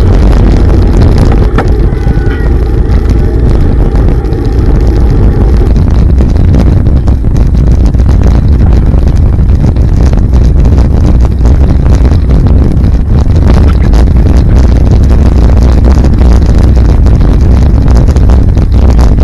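Wind buffeting the microphone of a camera on a moving bicycle, with road noise from riding on a wet road: a loud, steady low rumble with scattered small clicks.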